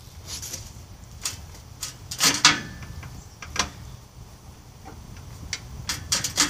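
Scattered metal clanks, knocks and scraping as the belt-tensioner tube on a Snapper riding mower is worked in and out by hand through its loosened clamp to set the deck-belt tension. The loudest knocks come about two seconds in, with several more sharp clicks near the end.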